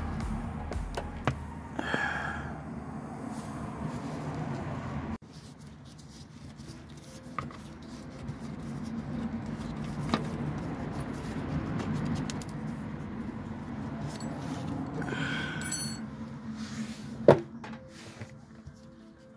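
Small metallic clicks and clinks from a Torx L-key working the T20 screws out of a plastic engine undertray, with two brief ringing clinks and a sharp click near the end, over a low background rumble.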